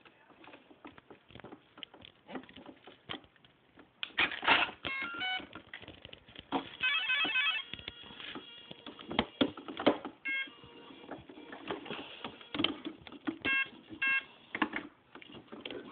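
Electronic beep tones from the RC model's electronics after the battery is connected: several short groups of beeps, one a rapid run. Scattered clicks and knocks come from the model being handled.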